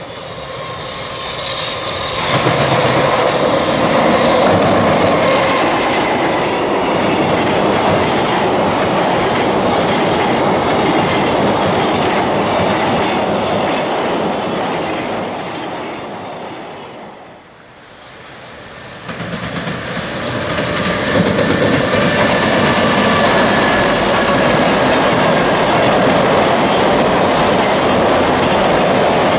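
JR Freight EF210 electric locomotives hauling container freight trains past at speed over steel bridges: the traction motors' steady whine over the rumble and clickety-clack of wagon wheels on the rails. The first train's sound dies away about two-thirds of the way through, and a second train comes in loud and steady.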